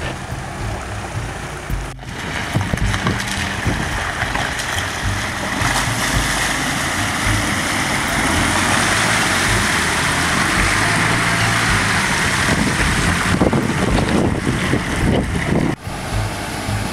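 Water rushing and splashing as a first-generation Mitsubishi Pajero fords a shallow river, its engine running underneath. The sound breaks off abruptly about two seconds in and again near the end.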